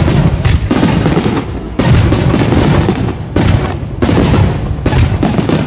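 Aerial firework shells bursting in quick succession during a large fireworks display: a sharp bang every second or so over continuous rumbling and crackling.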